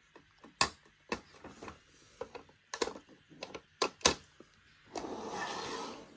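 Hard plastic clicks and knocks as a G-scale Troublesome Truck toy wagon is handled and set onto the rails, then about a second of scraping rustle near the end.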